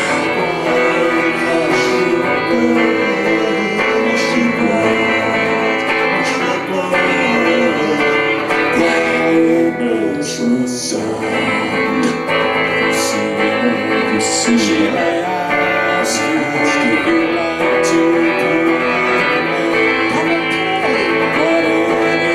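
A live band playing a guitar-led song.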